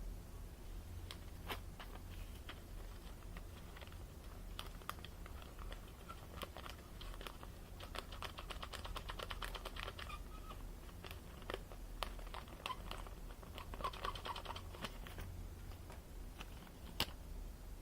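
Irregular light clicks and taps, thickening into a quick run of ticks about eight seconds in and again around fourteen seconds, with one sharper click near the end.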